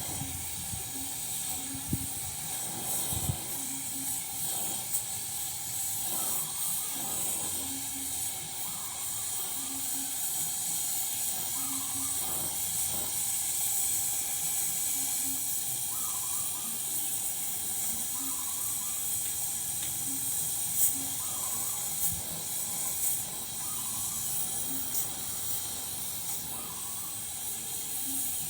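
Electric arc welding on a rice huller's cracked cover: the arc hisses and crackles steadily, with a few sharper cracks.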